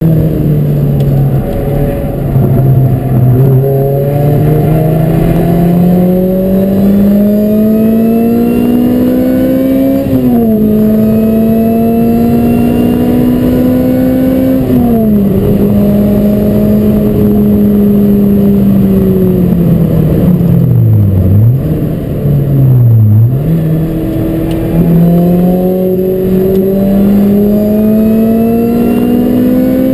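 Lotus Elise SC's supercharged four-cylinder engine heard from inside the cabin at speed on track. Its pitch climbs steadily, drops suddenly at gear changes about ten and fifteen seconds in, holds fairly level for a while, then dips sharply twice a little past twenty seconds before climbing again.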